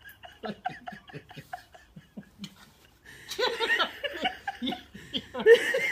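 Person laughing: soft chuckles at first, breaking into louder laughter about three seconds in.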